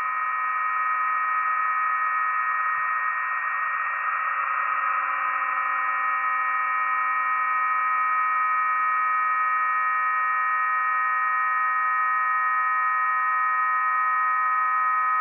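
Several steady radio carriers received in single sideband on a shortwave WebSDR, heard as a loud, unchanging chord of about ten pure tones over a band of hiss.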